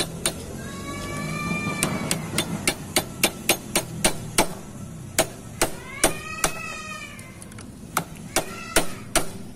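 Sharp metal-on-metal taps, about three a second, on the centrifugal clutch assembly of a Honda EX5 Dream, coming in two runs, the second near the end. A brief high wavering cry is heard twice behind them.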